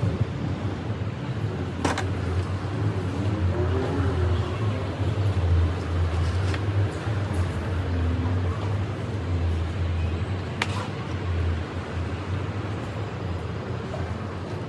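Steady low outdoor rumble of background noise, with two sharp clicks, about two seconds in and near eleven seconds, as marinated chicken pieces are worked onto a metal skewer.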